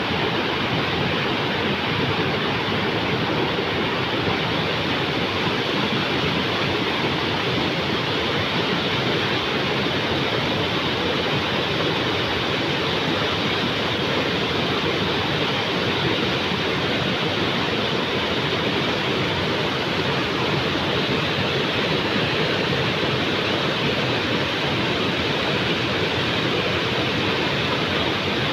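Mountain river rushing steadily, an even roar of flowing water.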